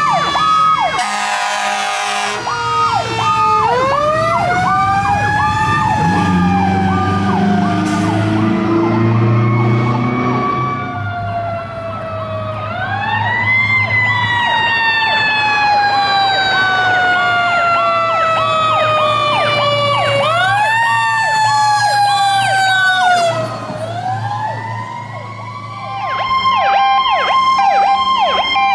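Federal Signal PowerCall electronic sirens on responding fire trucks, wailing in long sweeps that rise quickly and fall slowly, overlaid by a faster repeating stepped warble. A short loud horn blast sounds about a second in, and a truck engine hums beneath the sirens in the middle.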